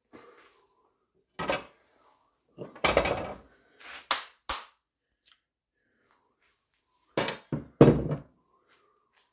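Knocks, clatters and clinks of tools and a wooden handle blank being picked up and handled on a workbench, in four short groups with pauses between them; the loudest knocks come near the end.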